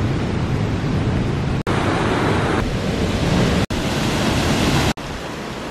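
Whitewater of the Maligne River rushing through the narrow canyon: a loud, steady rush of noise, cut off sharply and resuming three times, a little quieter after the last break.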